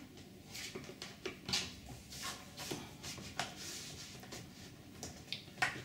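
Plastic drip bar being slid along its fixing screws on a uPVC door: faint plastic rubbing and scraping, with light clicks scattered through.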